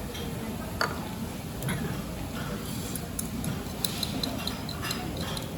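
Scattered light clicks and taps over low background noise, with a quick run of small ticks about four seconds in.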